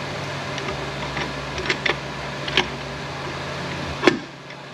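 Light metallic clicks and clinks as a greased planetary gear set is worked into a transfer case housing, with a sharper, louder click about four seconds in. A steady hum runs underneath.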